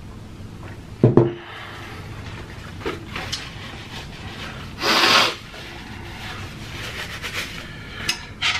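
A glass mug set down with a clunk about a second in, then a paper napkin rustling and one hard nose blow into it about five seconds in.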